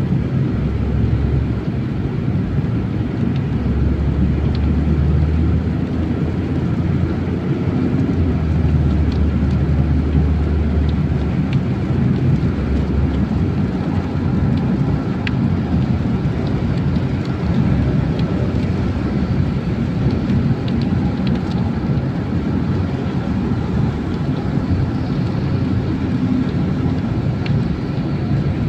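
Steady road and engine rumble of a moving car, heard from inside the cabin, with a deep low drone that is heaviest in the first ten seconds or so and a few faint ticks.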